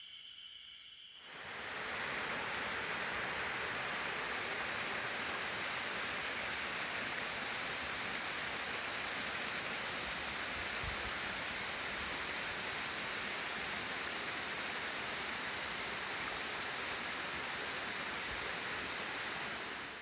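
Waterfall about 50 m high, water falling over boulders in a loud, steady rush that comes in about a second in. Before it, insects buzz faintly.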